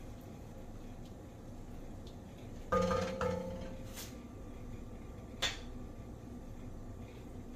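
A stirring spoon knocked twice against the rim of a cooking pot, each knock ringing briefly with a clear tone. Two lighter clinks follow a second and a half to two and a half seconds later.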